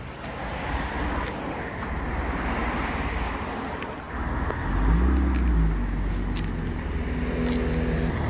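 BMW 3 Series coupé with an aftermarket quad-tip exhaust running, then revved about halfway through and held at a steady engine note as the car moves off, over background street traffic.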